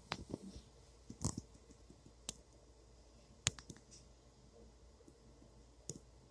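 Toy model planes and their plastic packaging handled by hand: scattered light clicks and taps at irregular intervals, the sharpest about three and a half seconds in.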